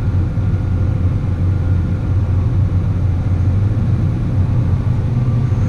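Farm machinery engine running steadily under load, a loud, even low drone with no change in speed.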